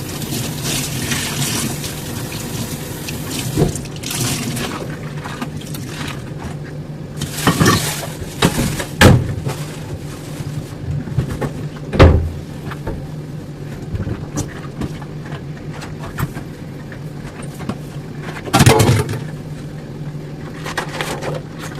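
Water running into a kitchen sink, heavier in the first few seconds, then dishes being handled with a few sharp clinks and knocks, the loudest about halfway through and another burst near the end. A steady low hum runs underneath.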